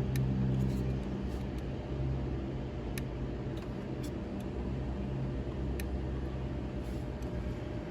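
Fuel pump relay in a 2012 Dodge Ram 1500's relay box (TIPM) clicking faintly about once a second as a scan tool toggles it on and off, over a steady low hum.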